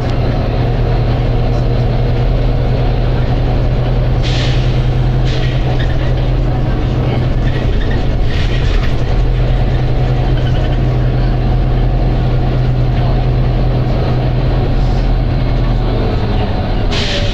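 Volvo B9TL double-decker bus running with a steady low engine drone, with several short hisses of compressed air from its air system, the loudest near the end.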